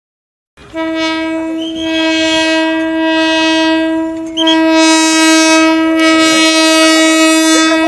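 Train horn sounding two long, steady blasts, the second louder and running straight on from the first about four seconds in.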